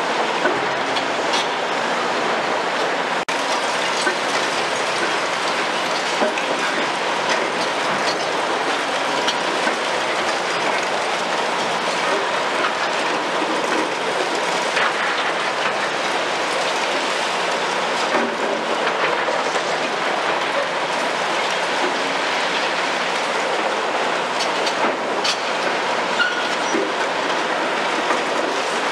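Demolition excavators at work on a concrete building: a steady din of engines and hydraulics under a dense, continuous clatter and crunch of concrete rubble breaking and falling.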